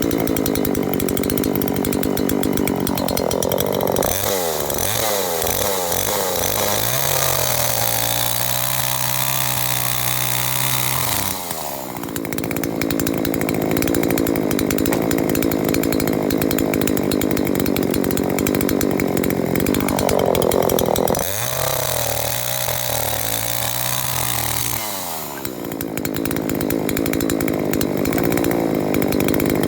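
A 39.6 cc two-stroke gasoline chainsaw engine is run at high revs, then throttled back twice to a slow idle, picking up to full revs again after each idle.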